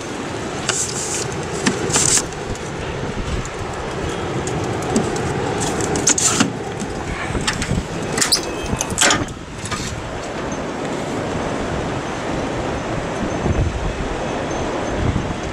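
Wind rumbling on the microphone, with a few short sharp clicks.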